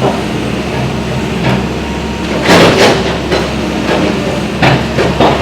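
Demolition work: a steady low engine drone with loud bangs and crashes of impacts, a double crash about halfway through and two more sharp bangs near the end.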